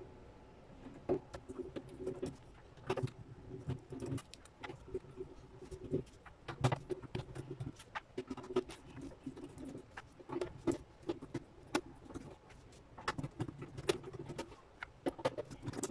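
Scattered light clicks and taps of a screwdriver on the screws and metal case of an inverter as its cover is taken off, with a dove cooing over it.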